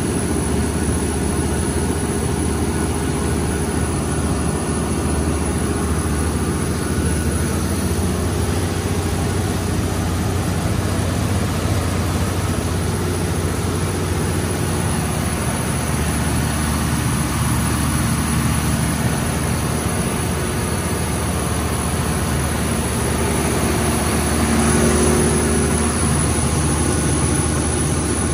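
MTU 12V4000 V12 diesel engine of a Kohler 1500 kW generator set running at a steady speed, a loud, even low drone heard from inside the generator's enclosure.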